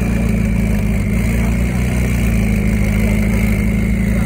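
McLaren supercar's twin-turbo V8 idling steadily as the car creeps forward at walking pace.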